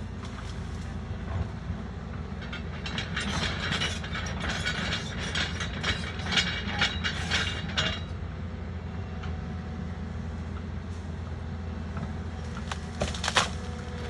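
Doosan DX140 excavator's engine running steadily, with a spell of rapid clicking and clanking from about three to eight seconds in and a few sharp knocks near the end.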